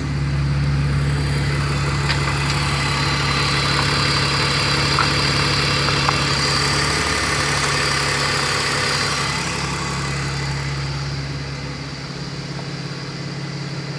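BMW 330Ci's inline-six engine idling steadily with a high hiss over it. It is running lean on an unmetered air leak, the computer adding about 27% extra fuel. Near the end the hiss fades and the engine note drops a little.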